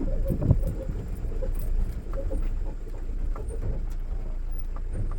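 Mahindra Bolero Pickup's diesel engine running at low speed, heard from inside the cab, with scattered small rattles and knocks.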